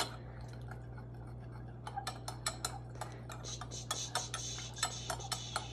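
Metal spoon stirring in a glass measuring cup, tapping and clinking lightly against the glass as vitamin C is dissolved in water. The clinks are sparse at first and come quickly and irregularly from about two seconds in.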